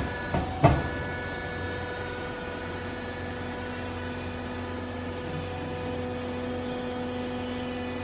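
Vertical hydraulic clothes baler running: the electric motor and hydraulic pump hum steadily while the ram drives the platen down, compressing a load of used clothes. A sharp clunk sounds just over half a second in, and a lower steady tone joins the hum about three seconds in.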